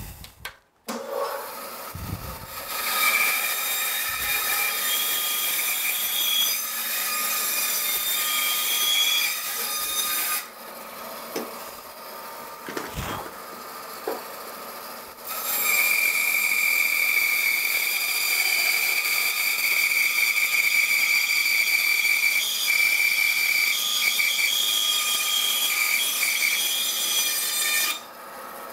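Bandsaw cutting a piece of she oak limb, in two long passes with a short break and a few knocks between them; a steady cutting noise with a high whine.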